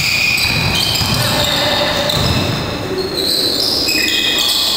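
Basketball shoes squeaking on the gym floor during play: many short, high squeaks one after another over low thuds of feet and ball, with the echo of a large hall.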